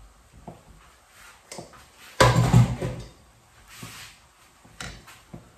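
Kitchen handling sounds: a few light knocks and clicks, with one louder clatter a little past two seconds in, like a cupboard or containers being moved about on the counter.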